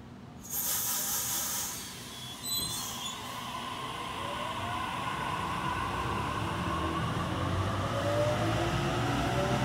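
Double-deck electric passenger train pulling out: a sudden burst of hiss about half a second in, a brief high squeal a couple of seconds later, then a whine from the drive that rises in pitch and grows louder as the train picks up speed.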